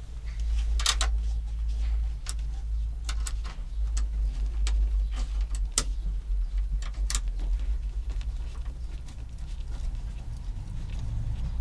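Flange nuts being fitted by hand onto a steel mounting bracket: scattered sharp metal clicks and clinks, the clearest about a second in and near six and seven seconds, over a steady low rumble.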